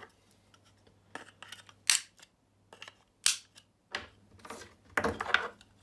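Handling noise of hard plastic parts: sharp clicks and knocks as the emergency stop button's plastic box and its cable glands are moved and set down, two louder knocks about two and three seconds in, then a short rattle.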